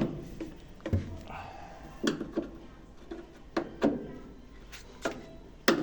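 Irregular sharp knocks and clicks, about seven in all, from a tool and fasteners being worked while a Mabe washing machine's panel is tightened back in place.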